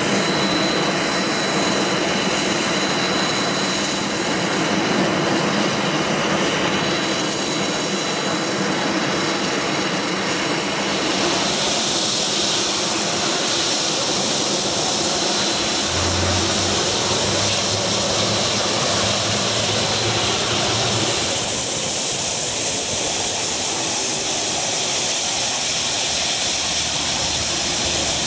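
Steady jet airliner noise. About a third of the way in it changes to a brighter, hissing jet whine of a Boeing 757's engines at taxi power close by. A low hum comes in for a few seconds around the middle.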